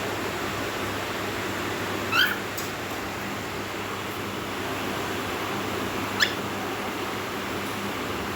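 Cockatiel giving two short rising chirps, one about two seconds in and a briefer, sharper one about six seconds in, over a steady background hiss.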